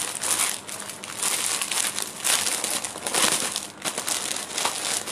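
Clear plastic garment packaging crinkling in irregular bursts as a packed dress set is handled.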